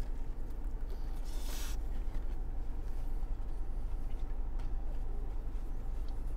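Eating sounds: two people chewing sandwiches, with a brief rustle of paper wrapping about a second and a half in and a few small clicks. A steady low hum from the car cabin runs underneath.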